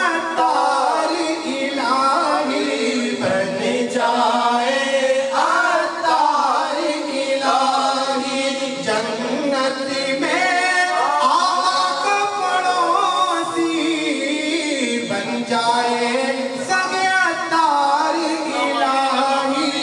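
Men singing an Urdu naat, an Islamic devotional song, unaccompanied through a microphone: a lead voice in long, ornamented lines that slide between notes, with other voices joining.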